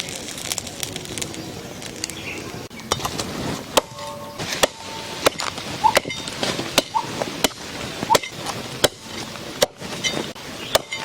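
Repeated chopping with a blade, starting a few seconds in at roughly one stroke every two-thirds of a second; several strokes carry a short metallic ring.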